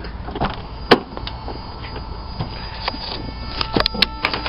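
Clicks and knocks of someone climbing into a 1995 Toyota 4Runner's cab: one sharp click about a second in, then a quick cluster of clicks near the end as keys are worked at the ignition, with a faint steady hum coming in just before.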